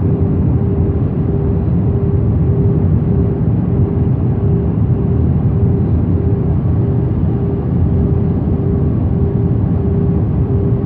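Jet airliner cabin noise: the steady roar of the engines and airflow heard from inside the cabin, with a humming tone that pulses evenly throughout.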